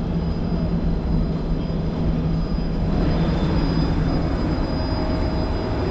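Boat's outboard motor running with a steady low hum under wind and water noise.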